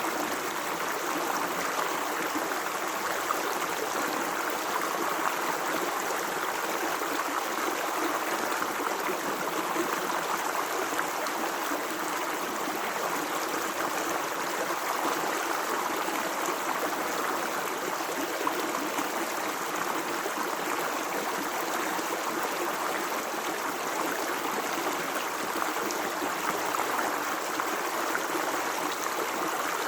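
Natural running water flowing steadily, an even rushing sound that goes on without a break.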